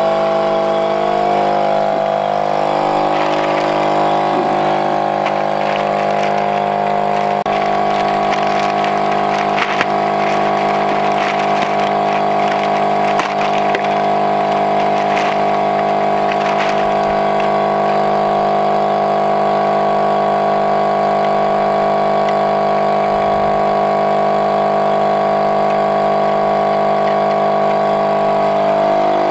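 A motor runs steadily with a constant, even-pitched hum. Crackling and clicks of a plastic bag being handled come in the first half.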